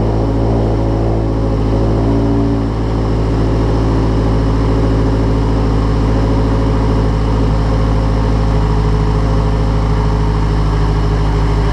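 Mazdaspeed 3's turbocharged 2.3-litre four-cylinder engine running steadily at idle on its first startup after a rebuild with a new short block and head.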